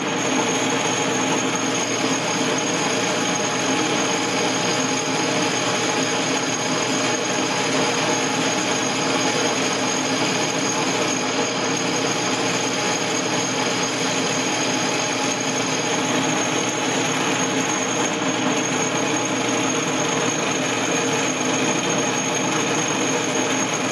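Atlas-built metal lathe running steadily under power feed, with its lead screw and gear train engaged, as a high-speed-steel bit turns down an aluminium bar. A constant drive noise with several steady tones and a high whine, a lot noisier with the drive screw engaged.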